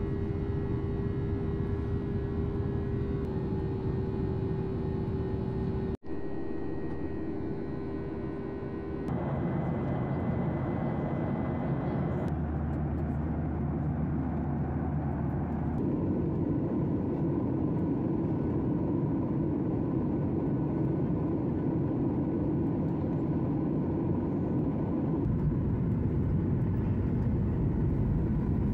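Cabin noise of a jet airliner heard from a window seat beside the wing engine: a steady drone of engine and rushing air, with a steady engine tone for the first nine seconds or so. The sound changes abruptly several times, with a brief dropout about six seconds in.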